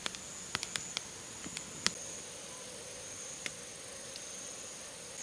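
Night insects calling in one steady high-pitched tone, with a wood fire in a metal fire pit crackling over it: a scatter of sharp pops, most of them in the first two seconds and one more about three and a half seconds in.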